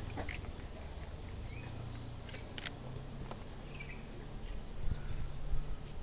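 Outdoor street ambience: a steady low rumble with small birds chirping in the trees, and one sharp click about two and a half seconds in, the shutter of a Sony A6000 camera firing.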